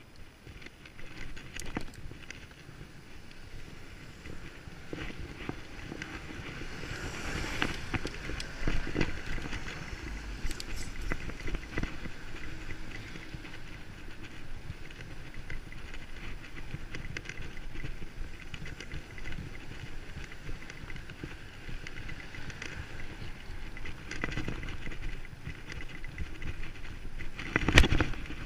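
Bicycle being ridden: a steady rolling noise with frequent small rattles and clicks, and one loud clatter near the end.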